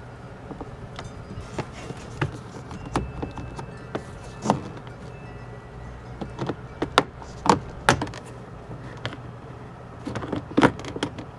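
Scattered sharp plastic clicks and snaps as the triangular interior trim cover at the mirror corner of a 1998 Ford Expedition's door is pried loose by hand and with a trim tool, its retaining clips letting go. The clicks come thickest about seven to eight seconds in and again near the end.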